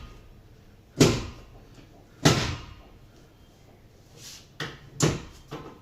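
Two sharp knocks about a second apart, each dying away quickly, then a few lighter knocks near the end.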